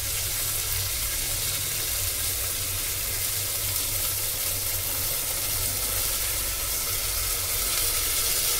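Steady sizzling of onion-tomato masala frying in oil in a pressure cooker as soaked whole masoor lentils are tipped in.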